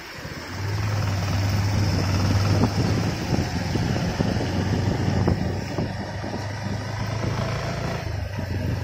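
Motor vehicle travelling along a road: a steady low engine hum under continuous road and wind noise, with other traffic passing close by.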